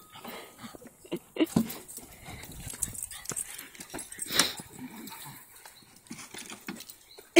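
Two dogs, a Doberman and a small terrier, playing at a tethered volleyball: scattered short dog noises mixed with knocks and scuffles, the sharpest about four and a half seconds in.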